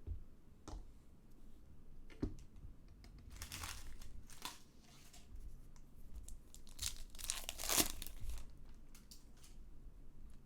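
Foil trading-card pack wrappers being torn open and crinkled, with short clicks and taps of cards being handled. There are two longer tearing rustles, one about three seconds in and one around seven seconds in.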